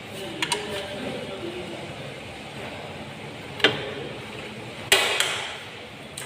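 A few sharp clinks and knocks of tools or parts against metal in a workshop: two small clicks about half a second in, a sharp knock midway, and a louder pair of knocks near the end, over a steady background murmur.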